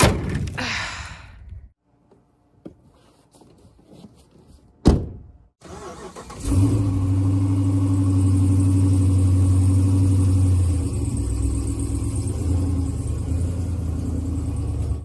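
Ram 4x4 pickup truck: the tailgate knocks shut at the start, and a door thumps shut about five seconds in. The engine starts about a second and a half later and runs steadily, easing a little in level as the truck begins to move off.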